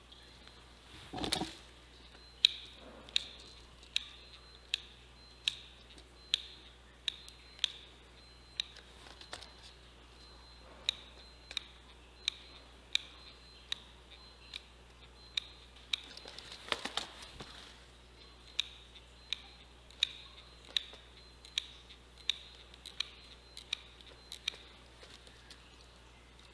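Hot glue gun's trigger clicking as it is squeezed over and over to feed the glue stick, sharp clicks about every three-quarters of a second with a few short pauses. A brief rustle of handling comes about a second in and again around seventeen seconds.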